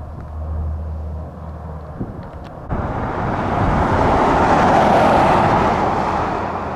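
Four-engine turboprop air tanker of the C-130 Hercules type flying low with a steady low propeller drone. About three seconds in, the sound changes abruptly to a rushing aircraft noise that swells to a peak and fades as the aircraft passes.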